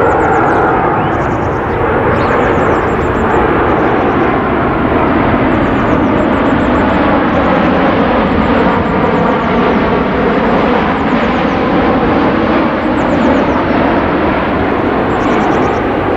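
Jet airliner on approach to land flying past, its engine noise loud and steady throughout, with a slow sweeping change in tone in the middle as it goes by.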